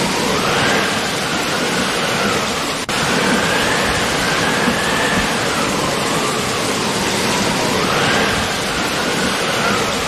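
Loud, steady rushing noise with a faint wavering tone above it that slowly rises and falls. The sound drops out briefly about three seconds in.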